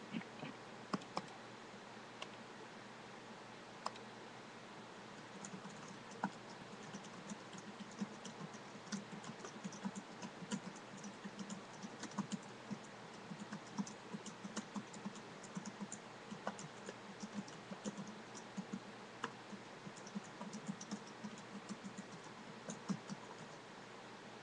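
Typing on a computer keyboard: a few scattered single clicks at first, then steady rapid typing from about five seconds in until shortly before the end.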